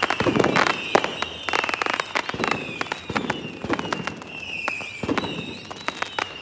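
Fireworks sound effect: dense crackling pops with repeated falling whistles, layered over the picture as a celebration.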